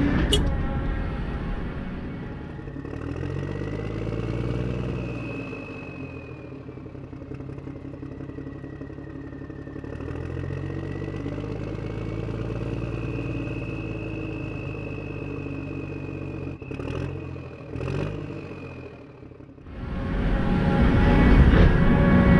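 Engine sound-effect module in a Huina 1573 RC dump truck playing a simulated engine, its low rumble rising and falling in pitch twice, with a high whine gliding alongside. A couple of sharp clicks come near the end, then the engine sound gets much louder in the last few seconds.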